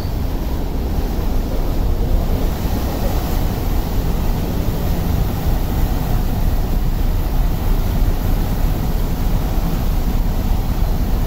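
Star Ferry's engine and propeller wash running steadily as the ferry berths, a constant low drone, with wind buffeting the microphone.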